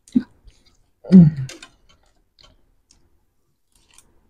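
Mouth sounds of a person eating pani puri and chatpate: a short hum of the voice about a second in, among a few faint clicks of chewing.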